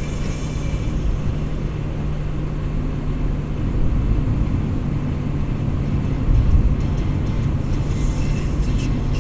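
Car driving on a paved road, heard from inside: steady engine hum and road rumble.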